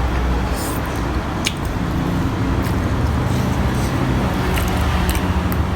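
A person chewing food, with a few short wet mouth clicks, over a steady low rumble.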